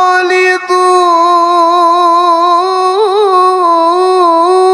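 A male qari's voice in Quran recitation (tilawah), holding one long, high melodic note. It breaks briefly about half a second in and wavers through a quick ornament about three seconds in.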